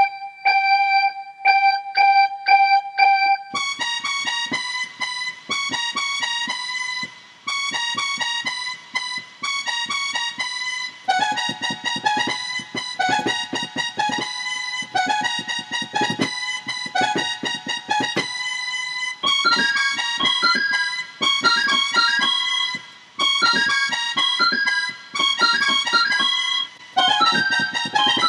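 Electronic keyboard music: a single repeated bell-like note, then a bouncy melody of short plucky notes over chords with a steady beat, in short repeating phrases.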